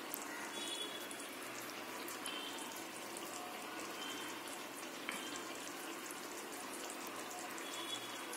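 Bitter gourd tamarind curry simmering in an open pan: a steady, faint bubbling with a few small pops.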